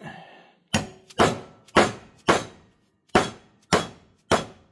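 Hammer blows knocking an old bearing out of a Kawasaki GPZ900R's cush-drive sprocket carrier: a short scrape, then seven sharp strikes at about two a second, with a brief pause after the fourth.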